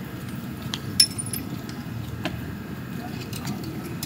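Light metallic clinks and taps, like metal tools or pieces being handled. One sharp ringing clink comes about a second in, over a steady low rumble.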